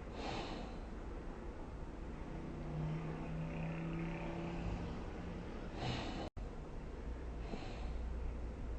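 Slow snoring of a sleeper: breathy hisses of air, and in the middle a steady, low-pitched humming snore that lasts about three seconds. There is a split-second break in the sound just after six seconds.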